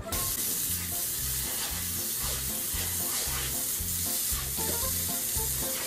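Steady hiss of water from a garden hose spraying and splashing onto a wet concrete patio, with a music beat underneath.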